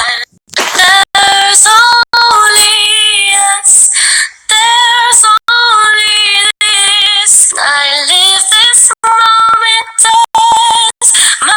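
A woman singing a slow, melodic pop line unaccompanied, gliding between long held notes. The sound cuts out sharply for a moment many times along the way.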